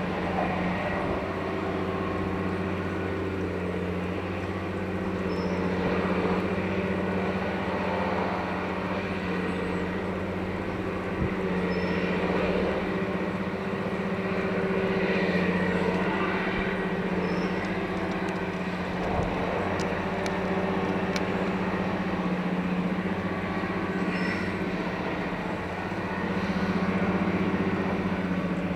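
Heavy diesel engine of a multiple tie tamper track-maintenance machine running steadily, with a short high chirp repeating about every six seconds.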